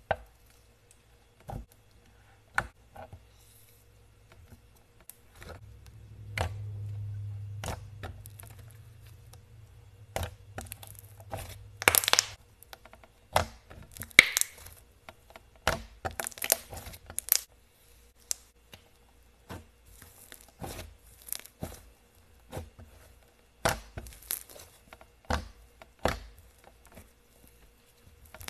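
Hands squeezing, poking and stretching slime, giving irregular sticky crackles, pops and tearing sounds that come in clusters. A low hum runs under them for a few seconds in the middle.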